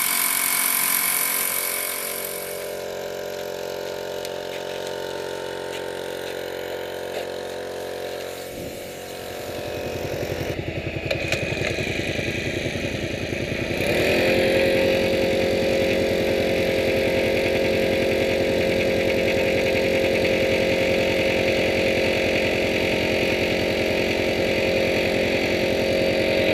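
Small engine of a firefighting quad running steadily, getting louder about fourteen seconds in and staying there.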